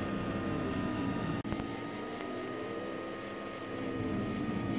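Ultimaker 3D printer running: its motors whine in low tones that rise and fall in pitch as the print head moves, over a steady high-pitched fan hum. There is a brief break with a click about a second and a half in.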